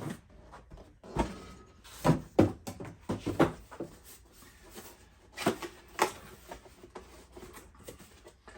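Cardboard packaging handled as a lantern box is opened and its contents taken out: a series of short knocks, scrapes and rustles, loudest in two clusters in the first half and two sharp knocks later on.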